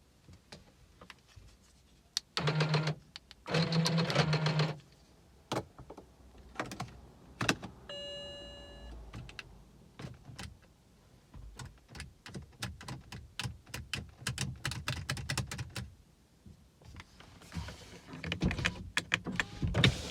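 BMW E90 335i that won't start: two short electric-motor whirs, a single chime, then a long run of sharp clicks with no engine cranking. The no-start follows a battery change and is blamed on the electronic steering lock (ELV) needing a reset.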